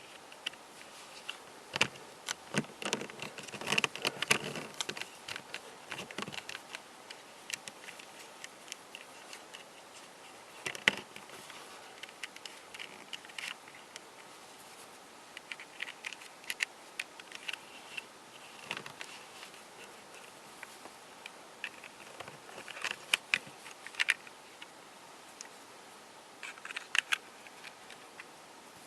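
Cast polyurethane resin twisty-puzzle pieces clicking, clattering and scraping against each other as they are handled and fitted, in irregular clusters of small sharp clicks with a light scratchy rustle between them.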